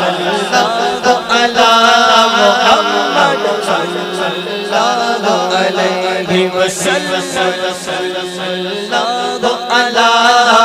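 A man singing a naat, an unaccompanied Urdu devotional song, in long melodic phrases into a microphone, over a steady low drone.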